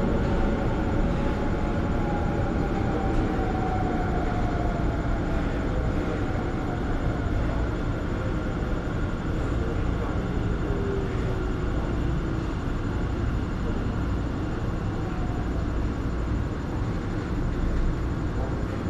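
Metro train running, heard from inside the carriage: a steady low rumble and rolling noise, with a faint whine that slowly falls in pitch through the first half.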